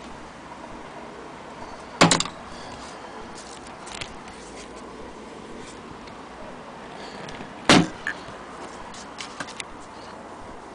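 Two loud, sharp knocks about five and a half seconds apart, with a few lighter clicks between and after, as the hand-crank Singer 66K sewing machine is handled.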